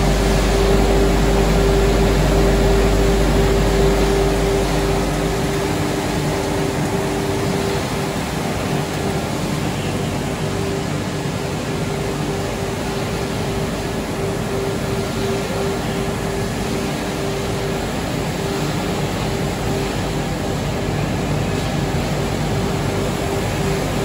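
Pellet production line running: the pellet mill and the vibrating screen under it give a steady, loud machinery drone with a constant hum. The deepest part of the hum drops away about five seconds in, and the rest runs on unchanged.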